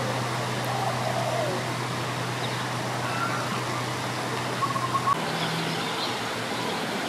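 Steady outdoor background noise with a low hum and a few faint short chirps; the hum shifts to a higher pitch about five seconds in.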